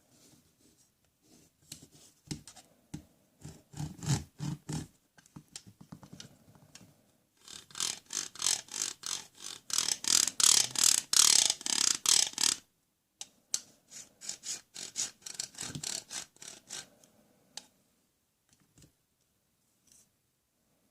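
Rapid plastic clicking and ratcheting from a children's toy tool being worked, in three spells of fast ticks; the middle spell, around the middle of the stretch, is the longest and loudest.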